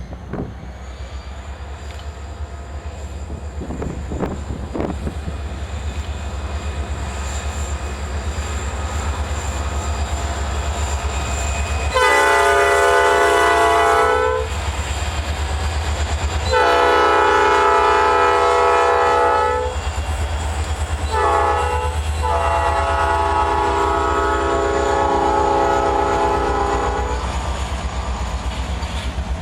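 Norfolk Southern diesel freight locomotive drawing closer, its engine rumble growing louder, then sounding its multi-chime air horn in the long-long-short-long pattern that signals a grade crossing. The last blast is the longest, about five seconds.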